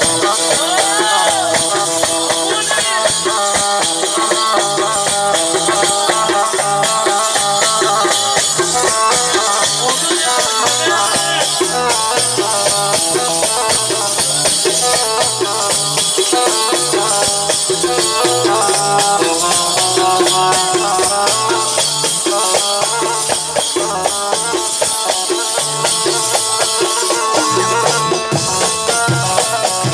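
Instrumental passage of Iraqi popular music: a melody line over a steady percussion rhythm, without singing.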